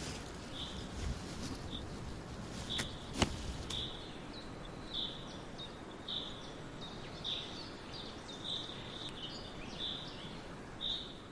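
A bird calling with short, high chirps repeated evenly about once a second over a steady outdoor hiss. Two sharp clicks sound about three seconds in.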